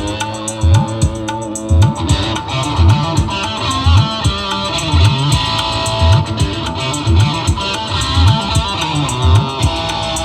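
Loud music played through a large outdoor sound system, with a heavy bass drum beat and a melody that slides in pitch.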